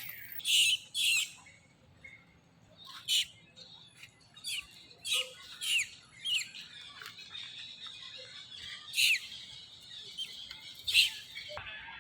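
Monkeys giving short, high-pitched squeaky calls, about nine of them at irregular intervals, each sliding down in pitch.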